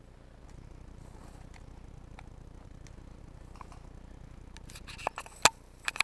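Faint steady low rumble with a few scattered small ticks, then a quick run of sharp, separate clicks and knocks in the last second or so.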